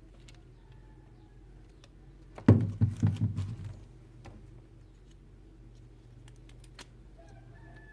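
A brief clatter of knocks and rattles about a third of the way in, dying away within about a second, over a low steady hum: plastic toy pieces and packaging being handled.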